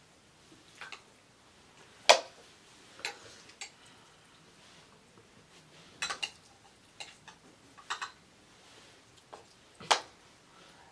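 Cutlery clinking and tapping on plates: scattered short clicks, the sharpest about two seconds in and near the end.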